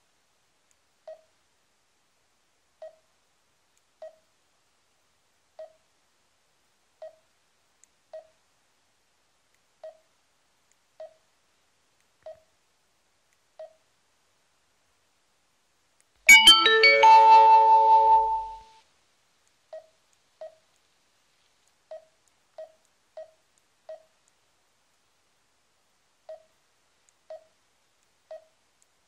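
Garmin dezl 760 LMT sat-nav giving a short, mid-pitched touch beep for each tap on its screen, every second or so at an uneven pace. About sixteen seconds in, a much louder electronic jingle of several tones plays for about two seconds.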